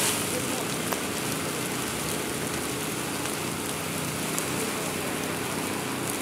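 Steady sizzling hiss of the burn under 275-gallon plastic totes, with a few faint crackles: fire in the pan beneath the tote and water steaming off hot surfaces.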